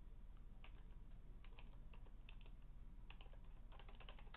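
Faint keystrokes on a computer keyboard typing a terminal command, in small uneven clusters of clicks with a quicker run of keys near the end.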